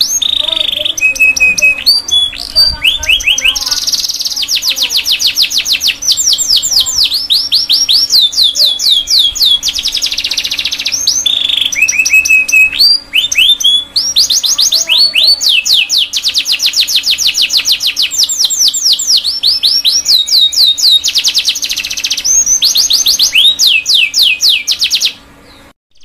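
Domestic canary singing a long, almost unbroken song of fast rolling trills, each a rapid run of repeated downward-sweeping notes, with a few short steady whistled notes between them. The song breaks off briefly near the end.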